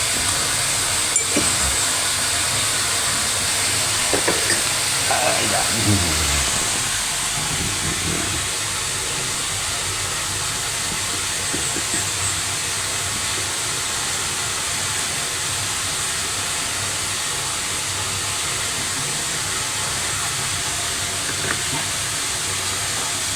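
Steady hissing noise, with a low falling tone about five seconds in and a few faint clicks.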